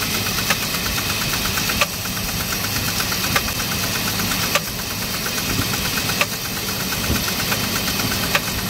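2004 Jeep Liberty Renegade engine idling on a cold start with a fast ticking and about six sharp, irregularly spaced metal-on-metal knocks. The owner suspects a collapsed lifter and a dropped rocker arm.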